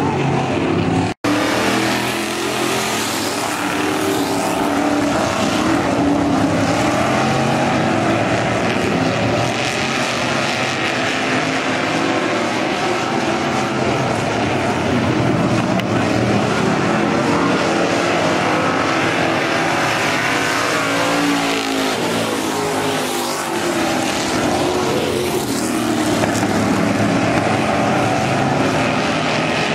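A field of eight-cylinder stock-class race cars running hard around a dirt oval, their engines blending into a steady loud drone. The engine pitch rises and falls as cars pass, most plainly past the two-thirds mark. The sound drops out for an instant about a second in.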